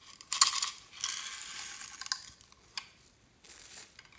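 Small hard orange discs being shaken out of a little toy box and pattering onto slime, a crackling rattle with sharp clicks. It comes in two spells: a long one through the first two seconds and a short one near the end.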